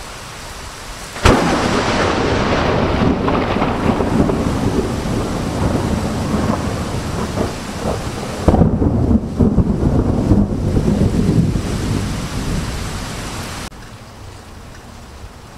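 Close thunder: a sharp crack about a second in breaks into heavy rumbling, and a second loud crack with more rumbling comes about halfway through, over rain. The rumble cuts off abruptly near the end, leaving only the rain.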